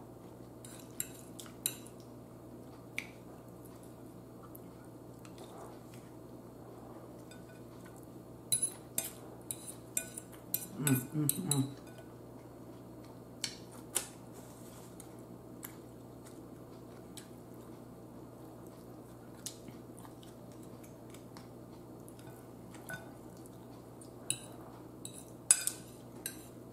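Metal fork clinking and scraping against a bowl in scattered taps, some in quick clusters, with long quiet stretches of faint room hum between them. A short hum of voice comes about eleven seconds in.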